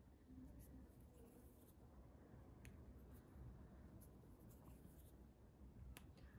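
Near silence, with faint scratching and a few soft ticks of a sewing needle and thread being pulled through needle-lace knots.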